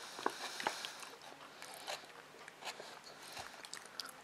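Faint clicks and scrapes of a plastic fork picking salad out of a plastic tray, with quiet chewing.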